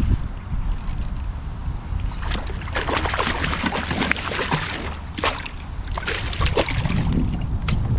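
Water sloshing and splashing around a small fishing boat, in irregular clusters of short splashes, over a steady low wind rumble on the microphone.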